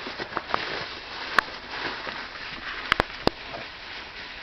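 Wood campfire crackling, with a steady hiss of burning and a few sharp pops, two of them close together.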